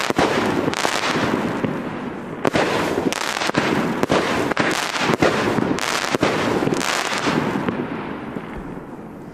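Thor Thrud 30 mm firework cake firing shots into the air: sharp bangs about once a second over a dense noise of the bursts, dying away over the last second or two as the cake finishes.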